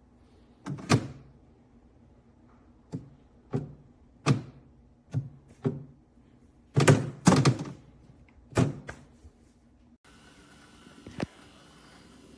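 A series of sharp knocks and thumps, about ten over ten seconds with some in quick pairs, like a door and hard objects being handled. After a change in the background comes one more single sharp knock.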